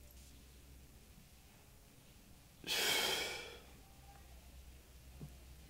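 A person's single loud breath, sigh-like, lasting about a second about halfway through, with near silence around it and a faint tick near the end.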